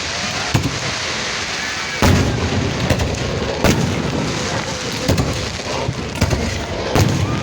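Fireworks exploding: about seven sharp bangs at uneven spacing, the loudest about two seconds in, over a continuous low rumble of further bursts.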